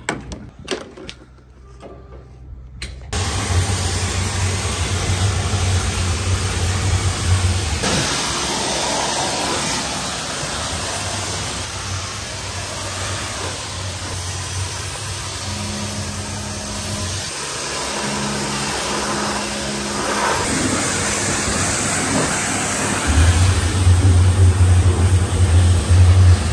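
Pressure washer spraying a truck, starting about three seconds in after a few quiet handling sounds: a steady hiss from the water jet over the machine's low hum, which drops in and out.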